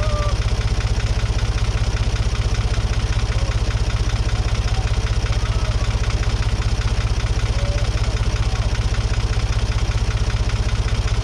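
A farm vehicle's engine idling steadily close by, with an even, rapid pulse and no change in speed.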